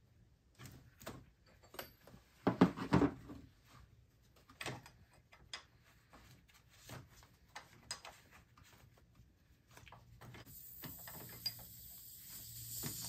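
Hand tools and gloved hands clicking and knocking against metal parts in a car's engine bay as the AC refrigerant line fittings are undone at the compressor. The loudest knocks come in a short cluster about two and a half seconds in. A steady hiss with a low hum comes up near the end.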